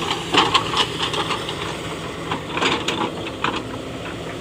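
Heavy-equipment engine idling steadily, with a series of sharp metallic clanks and knocks over it.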